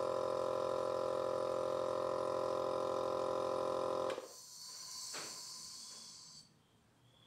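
Virutex SVE670 electric vacuum clamp's pump running with a steady hum, cutting off suddenly about four seconds in and leaving a brief hiss and a faint click.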